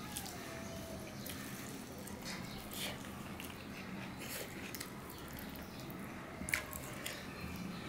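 Sticky, wet clicks and squishes of fingers mixing rice with mustard okra curry on a steel plate, along with mouth-chewing sounds; a sharper click comes about six and a half seconds in.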